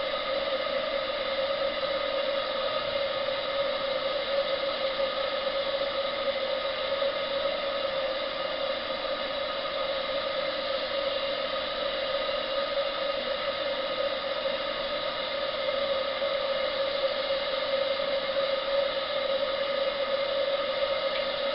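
Brass 28mm butane boiler burner running steadily under a model live-steam boiler: a constant roar carrying a steady hum-like tone, unchanging throughout, while the boiler comes up to pressure.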